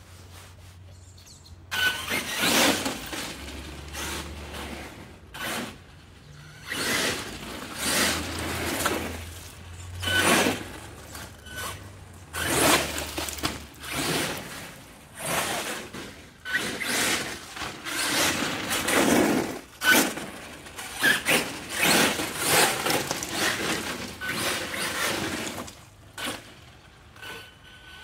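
HPI Savage XL Flux electric RC monster truck, its brushless motor and freshly rebuilt front differential (new ring and pinion) under test, driven hard in short bursts of throttle about every one to two seconds, with tyre noise on wet ground.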